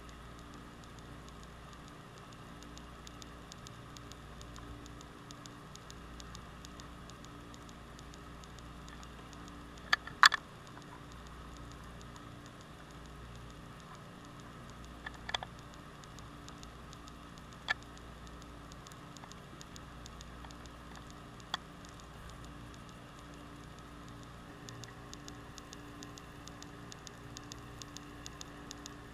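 Underwater ambience picked up by a camera in its waterproof housing on the seabed: a faint steady crackle and hiss. A few sharp clicks stand out, the loudest about ten seconds in, and the fine ticking grows denser near the end.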